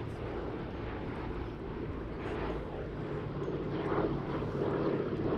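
Boeing B-17G Flying Fortress's four Wright R-1820 Cyclone radial piston engines droning steadily in flight, growing a little louder about four seconds in.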